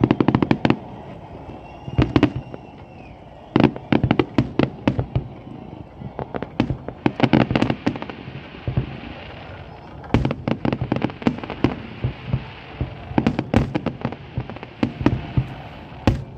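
Fireworks going off in repeated volleys of sharp bangs and crackles, a cluster every couple of seconds with brief lulls between.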